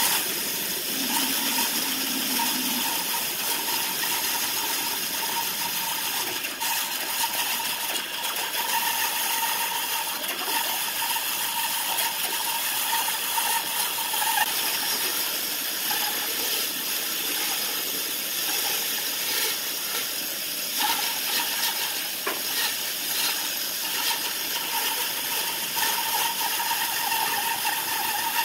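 Bandsaw running and cutting slowly through a thick block of wood along a curved line, rounding a square blank; a steady whirring cut with a faint tone that comes and goes.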